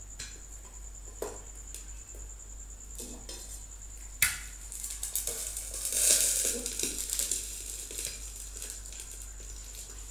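A metal lid clinks sharply against a frying pan and is lifted. An egg frying in oil on low heat sizzles and hisses for a couple of seconds, loudest about six seconds in. A few lighter clicks of metal come before.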